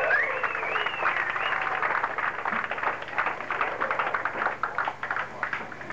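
Club crowd cheering after a song, with gliding shouts or whistles for the first second or so, then scattered clapping that thins out near the end.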